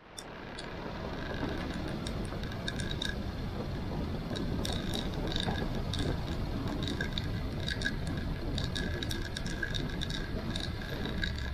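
Motorcycle engine running steadily at low road speed on a steep climb, with light ticking at irregular intervals over the low rumble. The sound fades in at the start.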